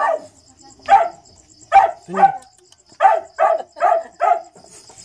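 Small dog barking in a run of short barks, about seven of them, spread over four seconds.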